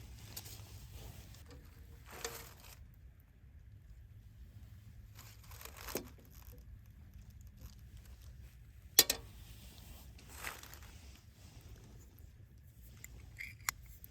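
Handling noises: scattered rustling and crinkling, with a sharp knock about nine seconds in.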